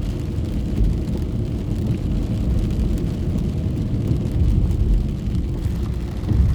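Rain on a moving car, heard from inside the cabin: a steady low road-and-engine rumble with faint scattered raindrop ticks on the body and windscreen.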